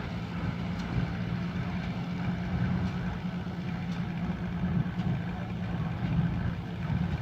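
Engine of a self-propelled New Holland baler running steadily at a constant speed.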